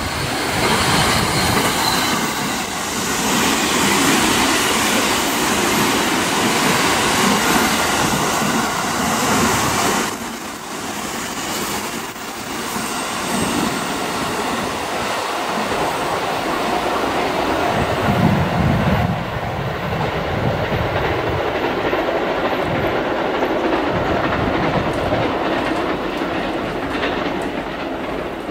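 Sunrise Express 285 series electric sleeper train running past, its wheels rolling and clicking over the rail joints. About two-thirds of the way through, a thin high wheel squeal holds for a few seconds as it takes the curve.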